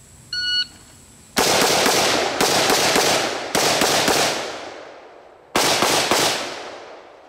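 An electronic shot timer beeps once, then about a second later a rifle fires a string of shots in quick groups, each ringing out with a long echo. The last group comes about 5.5 seconds in.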